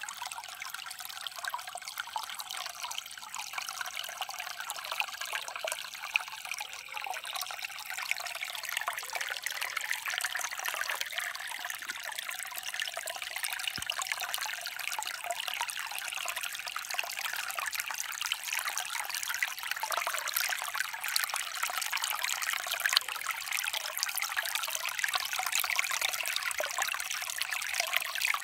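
Shallow creek water trickling and splashing over rocks, a steady run of small splashes.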